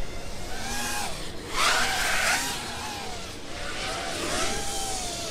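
Karearea Talon FPV racing quadcopter flying, its brushless motors and propellers whining with the pitch rising and falling as the throttle changes, and a louder rush of propeller noise about one and a half seconds in.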